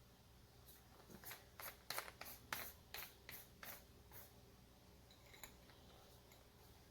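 A quick run of light clicks and taps, about three a second, that stops a little past halfway, typical of small metal terminal hardware (screws, washers, lock nuts) being handled and fitted.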